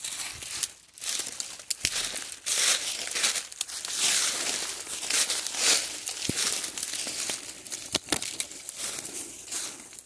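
Footsteps crunching through dry fallen leaves, with twigs and branches brushing and scraping past, and a couple of sharp cracks from snapping twigs.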